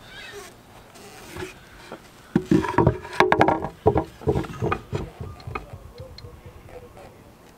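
A strip of wood being handled and knocked about by hand. Starting about two and a half seconds in, a cluster of sharp wooden knocks and clatters lasts a couple of seconds, then gives way to a few faint taps.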